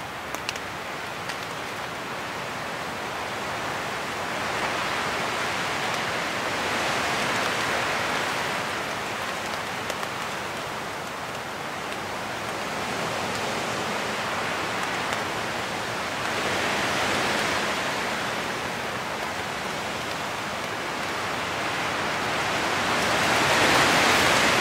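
Storm wind gusting through the trees and rain on the tent fly, heard from inside the tent. The rushing rises and falls in gusts, strongest near the end.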